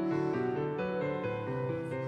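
Background music: a melody of quick, evenly paced pitched notes.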